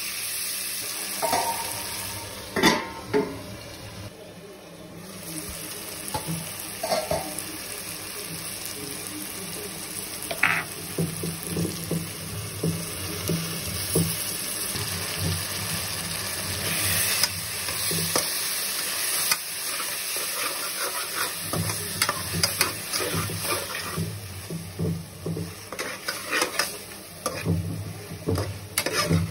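Onions and tomatoes sizzling in oil in an aluminium pressure cooker while a spatula stirs and scrapes across the pot's base. There is a steady frying hiss under irregular scraping strokes, with a few sharper knocks of the spatula, the loudest about three seconds in.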